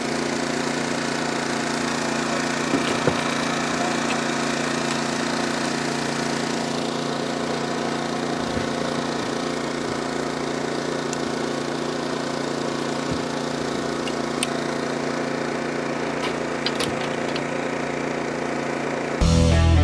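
A small engine running steadily at one even speed, a constant hum, with a couple of sharp knocks about three seconds in. Music starts right at the end.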